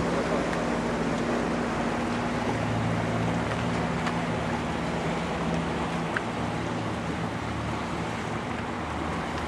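Motorboat engines droning steadily as the boats pull away across the water, over a steady noisy hiss.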